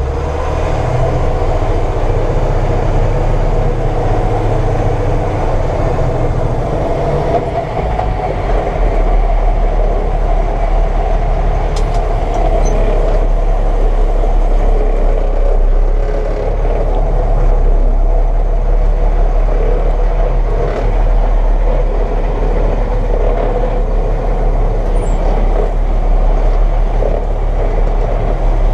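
John Deere 9500 combine running steadily while harvesting corn, a continuous loud machine drone. The low rumble shifts and deepens about eight seconds in.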